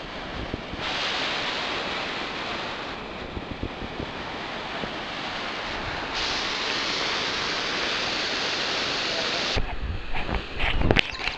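Steady rushing white noise of falling water from a waterfall, stepping abruptly louder or softer a few times as the footage changes.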